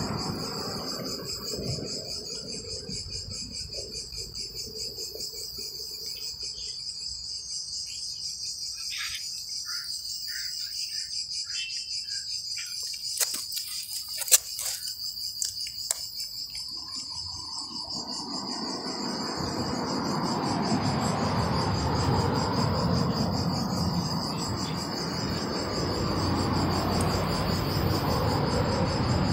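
Insects chirring steadily in a high, pulsing drone. A cat chewing fish gives a few sharp clicks about halfway through, and a low rumble of background noise rises in the second half.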